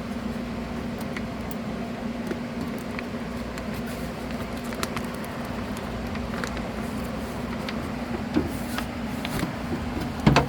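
Scattered small clicks and taps of door-handle parts being handled inside a pickup's door, over a steady low hum, with one louder knock near the end.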